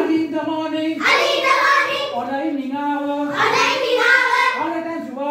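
A class of young children singing a rhyme together in unison, phrase by phrase.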